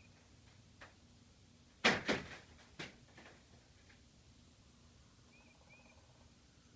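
Ice cracking and popping: a faint click about a second in, then a cluster of sharp, ringing cracks around two seconds in, followed by two weaker pops about three seconds in.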